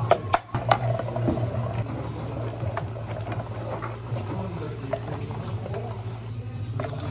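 Chunky strawberry preserve pouring from a plastic bottle into a plastic cup, over a steady low hum. There are a few sharp knocks in the first second.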